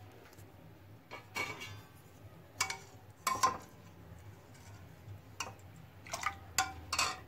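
Metal spoon stirring milk in a non-stick kadhai, tapping and scraping the pan with several sharp clinks and a little sloshing of liquid.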